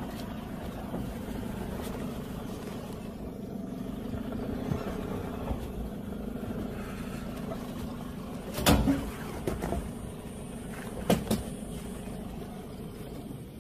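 A vehicle engine idles with a steady low hum. Two short, loud noises stand out, about nine and eleven seconds in.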